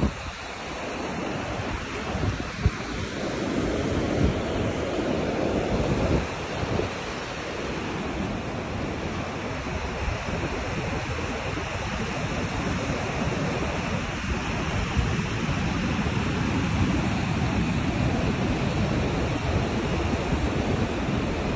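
Small surf breaking and washing up the sand at the shoreline, a steady rushing wash that swells louder a few seconds in and again near the end, with wind buffeting the microphone.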